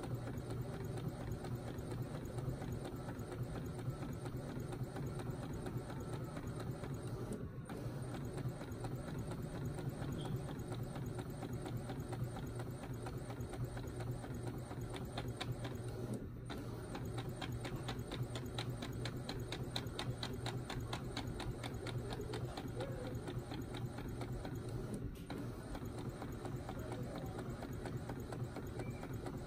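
Epson EcoTank ET-2760 inkjet printer printing a page: a steady mechanical whir and hum of the print head and paper feed, with a run of fast, even ticks in the middle.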